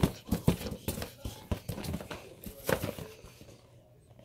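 Red latex balloon being grabbed, squeezed and batted by a capuchin monkey: a quick run of short rubbery squeaks, rustles and soft knocks for about three seconds, then quieter.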